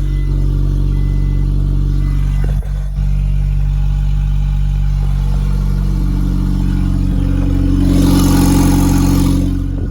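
Car engine, the 2000 Honda Accord's F23 inline-four, running steadily, with a brief rush of noise about eight seconds in.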